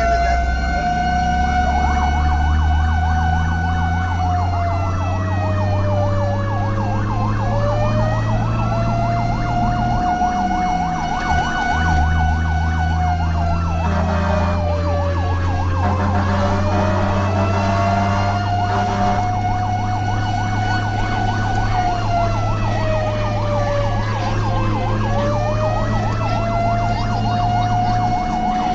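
Fire truck siren wailing, its pitch slowly falling and rising again about every nine seconds, with a faster warbling siren tone over it and the truck's engine running as a steady low drone underneath. The engine drone dips out briefly about eleven seconds in.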